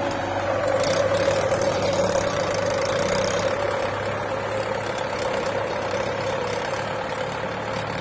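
Diesel engines running steadily: a Mahindra Yuvo tractor hauling a trolley loaded with earth, together with a JCB 3DX backhoe loader.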